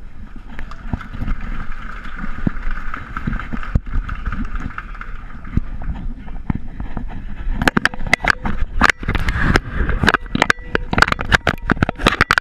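Crowd chatter with a low rumble picked up by a GoPro worn on a dog's harness. From about eight seconds in comes a rapid run of knocks and scrapes as the camera is jostled and tips over on the harness.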